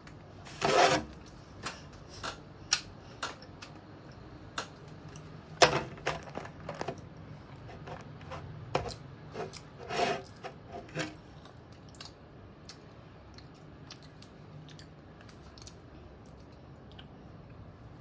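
Rubik's cube being handled and turned: short scraping clicks of its plastic layers, a few loud ones and many small ones in the first eleven seconds, then only faint scattered clicks.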